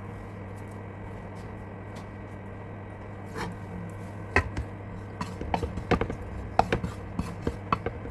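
A spatula stirring dry coconut as it roasts in a pan. Irregular scraping and tapping against the pan start about three seconds in and grow busier, over a steady low hum.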